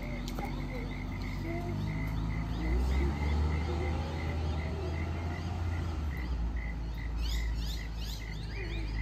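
Outdoor street ambience: a steady train of short high chirps, about two or three a second, with a low traffic rumble that swells and fades in the middle and birds calling near the end.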